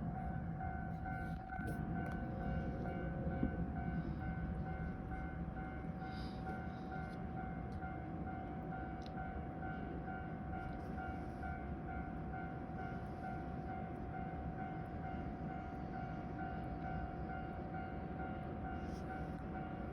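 Train running on the tracks below, a steady low rumble, with a steady tone and a higher tone pulsing on and off about twice a second.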